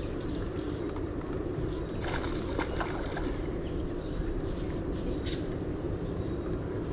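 Steady low outdoor rumble with a cluster of short, crackly splashes or scrapes about two seconds in, then a few lighter ticks.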